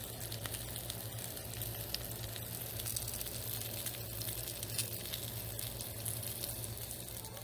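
Halved Brussels sprouts sizzling on a hot flat-top griddle: a steady frying sizzle dotted with fine crackling pops, over a low steady hum.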